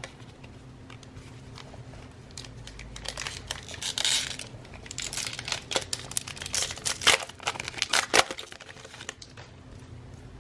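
A Donruss football card pack wrapper being torn open and crinkled, in a run of crackly rustles and sharp ticks that is busiest between about three and nine seconds in.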